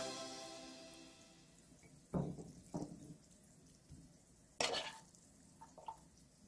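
Fried rice being scraped out of a non-stick frying pan onto a ceramic plate with a spatula: a few short scrapes and knocks, the loudest about two seconds in and again near five seconds. Background music fades out at the start.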